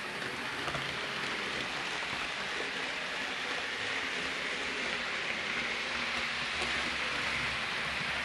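Hornby OO gauge Class 390 Pendolino model train running along the layout's track: a steady rushing hiss.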